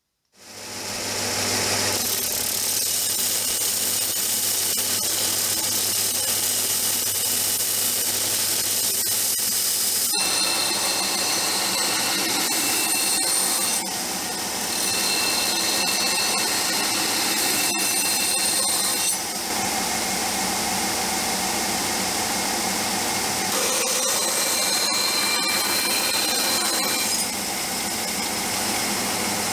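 Benchtop belt grinder running steadily while the flat side of a rust-pitted steel cleaver blade is pressed against the abrasive belt, grinding the pitting off the steel. The sound rises in over the first second or so.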